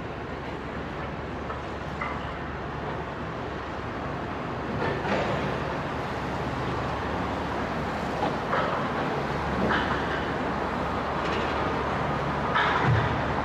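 Heavy diesel earthmoving machinery running: a steady low engine rumble with a few scattered knocks and clanks.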